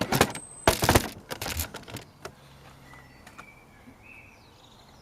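Plastic engine-oil container crackling and knocking as it is handled while oil is poured into the engine. The crackles are loud and packed into the first second, a few lighter clicks follow, then it goes quiet.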